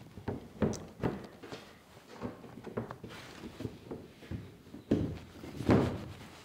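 Fiberglass trunk lid of a 1934 Ford coupe being pressed and shifted into its opening: a series of light knocks and thunks, with two louder thunks about five seconds in.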